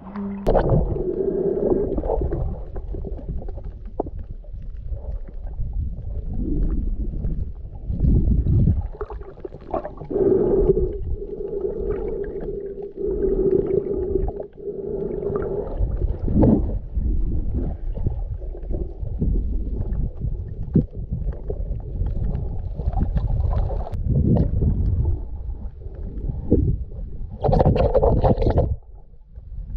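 Muffled underwater sound from a camera held below the surface by a swimming snorkeler: low rumbling swells of water movement and gurgling that rise and fall every few seconds. A steady hum sits through the middle, and a brief brighter rush of water comes near the end.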